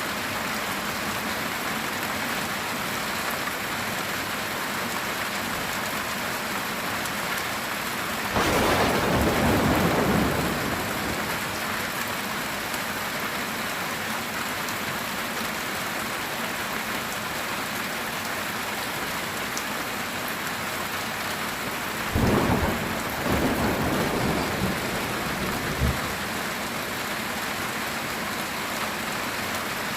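Steady heavy rain with two claps of thunder: a sudden rumble about a third of the way in lasting a couple of seconds, and another near three quarters of the way through that trails off over about four seconds.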